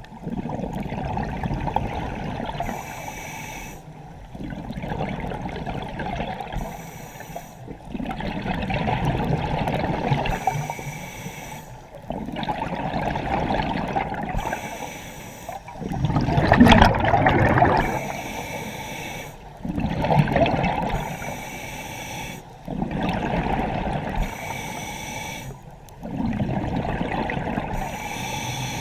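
A scuba diver breathing through a regulator underwater: a short hiss on each inhale, then a longer gurgling rush of exhaled bubbles, repeating about every four seconds.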